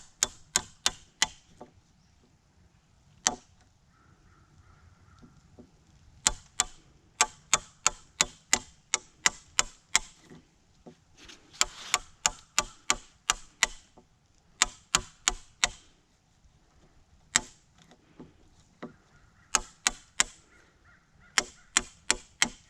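A chisel being struck with a hammer or mallet to chop out a half-lap joint in wet framing lumber. The blows come in runs of sharp knocks, about two to three a second, with short pauses and a few single strikes between runs. The wet wood cuts poorly and the chisel is dull.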